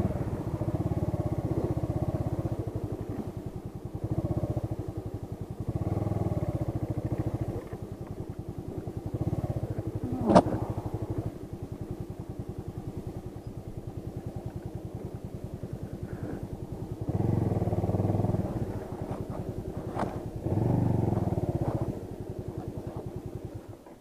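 Motorcycle engine at low speed, the throttle opened in short surges and let back to idle as the bike crawls through slippery mud, losing traction. A sharp click comes about ten seconds in and another near the end, and the engine sound falls away right at the end.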